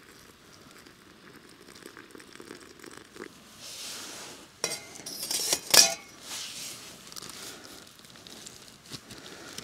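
Boiling water poured from a small metal cooking pot into a plastic freezer bag of dehydrated food, with sharp metallic clinks of the pot about five seconds in and the plastic bag crinkling as it is handled and closed.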